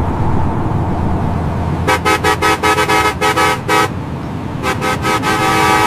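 Multi-tone 'telolet' bus horn sounding its chord in a quick run of short toots, then after a pause a couple more and a long held blast near the end. Underneath is a steady low rumble.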